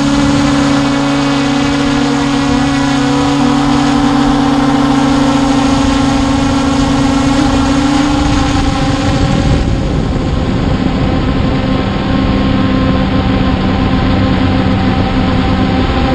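Hubsan H501S quadcopter's brushless motors and propellers in flight, heard from the camera mounted on the drone: a steady hum of several tones over propeller and wind noise. The pitches of the hum shift about eight seconds in.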